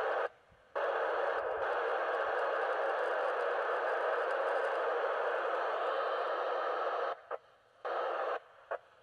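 Amateur FM radio transceiver tuned to the ISS downlink on 437.800 MHz, its speaker giving steady static hiss with no voice in it while the squelch is open. The hiss cuts off abruptly for a moment about half a second in, and twice more near the end, as the squelch closes and reopens.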